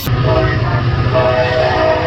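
Locomotive air horn sounding a steady multi-note chord over the low rumble of the train.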